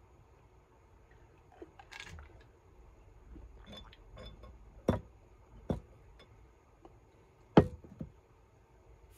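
Computer mouse clicking: three sharp clicks, about five, six and seven and a half seconds in, the last the loudest, with a few fainter ticks around them and a soft knock about two seconds in.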